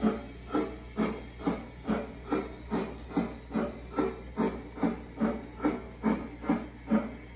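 Steam-locomotive chuff sound from a RailPro sound module in a G-scale battery trailing car, played through its speaker as a steady beat of about two chuffs a second. The chuff timing is fixed and cannot be adjusted to the train's speed.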